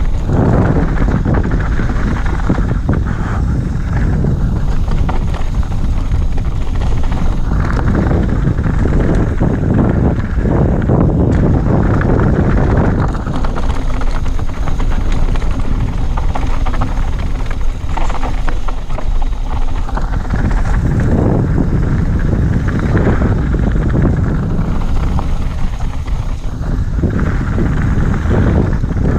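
Wind buffeting an action camera's microphone together with the rumble and rattle of a mountain bike's tyres and frame running fast down a loose gravel trail.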